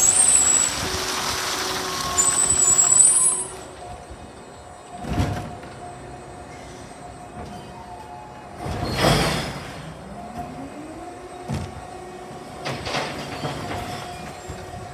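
Electric side-loading garbage truck's automated arm lifting and tipping a wheelie bin over the hopper. A steady whine runs under a few thumps, and the loudest is a rush about nine seconds in as the bin is tipped. The first few seconds carry a louder hiss.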